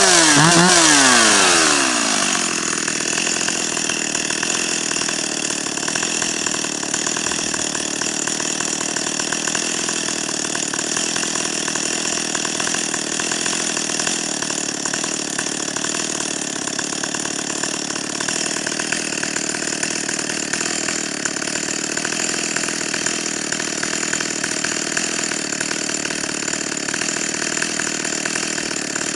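Stihl 028 AV Super chainsaw's two-stroke engine revving up and down on the throttle, then dropping to a steady idle about two seconds in.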